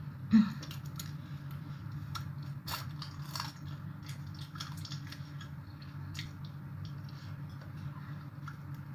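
Eating a small whole crab from papaya salad: the shell cracking between fingers and teeth and being chewed, in scattered crisp cracks and crunches, the loudest about half a second in. A steady low hum runs underneath.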